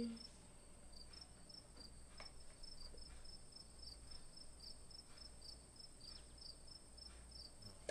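Near silence: room tone with faint, short high chirps repeating evenly about three times a second over a faint steady high whine and low hum.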